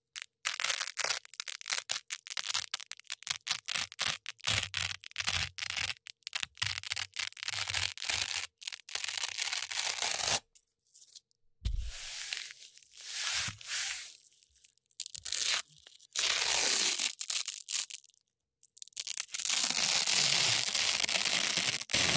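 Hook-and-loop (Velcro) strips being ripped apart close to the microphone: a fast run of short crunchy crackles, then a few longer rips with pauses between them, and near the end one long continuous rip.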